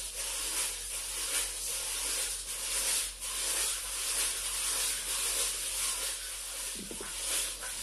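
A hand-held vegetable peeler scraping the skin off a raw potato in repeated short strokes, a steady rasping hiss.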